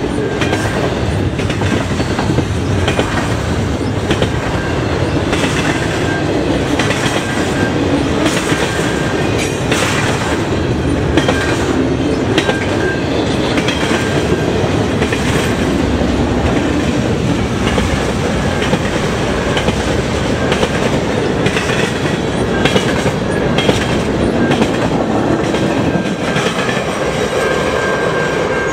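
Double-stack intermodal container well cars of a freight train rolling past: a steady, loud rumble of steel wheels on the rails, with scattered clacks and a thin squeal that comes and goes.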